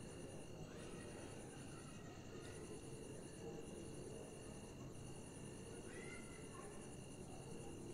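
Faint high insect chirping, likely crickets, in on-and-off bouts of about a second, over a steady low background noise.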